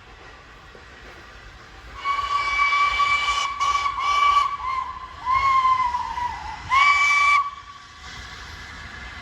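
Train horn sounding one high-pitched single tone: a long blast about two seconds in, then four shorter toots, over a faint steady hiss.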